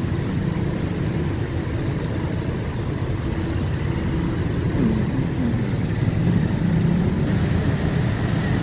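Steady din of road traffic, with cars and motorbikes running along a busy street.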